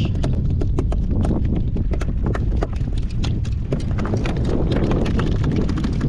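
Wind rumbling on the microphone, with many sharp, irregular clicks and taps over it.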